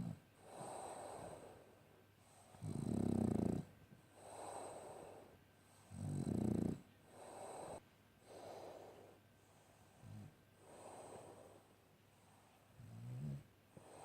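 A French bulldog snoring in its sleep, a breath every second or two: two loud snores about three and six seconds in, smaller ones later, and softer airy breaths between them.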